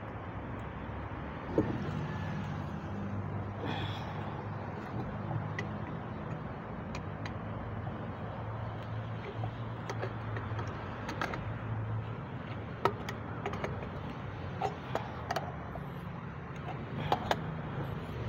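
A few sharp metal clicks and knocks as a wrench turns a teflon-taped threaded fitting into the top of a water pump housing, with several clicks close together near the end. A steady low hum runs underneath.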